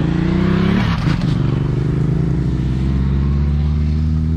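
A motor vehicle engine running close by, its pitch rising for about the first second as it speeds up, then holding steady.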